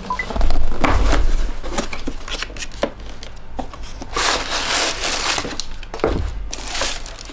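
Tissue paper rustling and crinkling as the wrapping inside a cardboard shoebox is pulled back from a pair of new sneakers, with knocks from the box being handled. The longest, loudest rustle comes about four seconds in.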